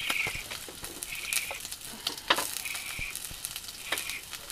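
Sausage patties frying in a pan, sizzling with frequent sharp crackling pops, a loud one about two seconds in. A short high note recurs about every second and a half.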